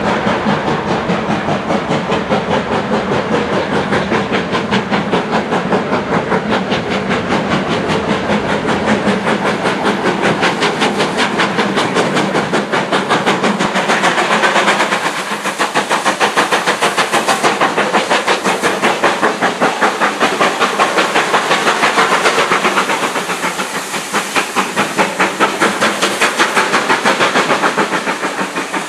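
Steam locomotive working under power, its chimney exhaust beating in a quick, even rhythm over a hiss of steam.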